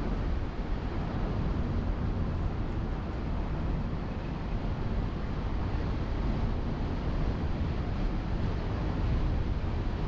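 Car driving along a road: a steady rush of wind on the camera microphone over a deep, even road rumble, with no distinct events.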